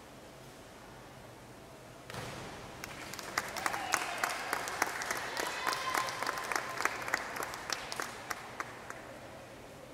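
Synchronised divers hitting the pool water about two seconds in, followed by several seconds of scattered applause with distinct individual claps, dying away near the end.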